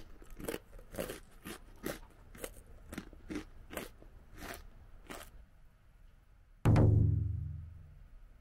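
Crisp soy-sauce rice crackers being chewed, about two crunches a second, then the chewing stops. Near the end a single loud, deep ringing musical tone sounds and fades away over about a second and a half.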